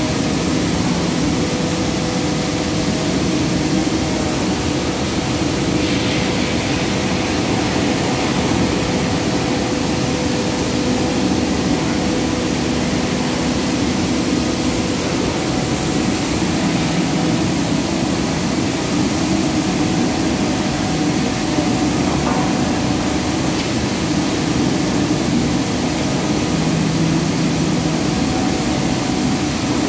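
Steady, loud din of palm oil mill machinery running: a hum with several held tones under a constant hiss.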